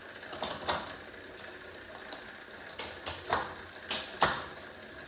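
Rear drivetrain of a Lectric XPedition e-bike being shifted into seventh gear, the smallest cog, while it turns: a steady ratcheting rattle from the freewheel and chain, with half a dozen sharper clicks as the chain moves across the cogs.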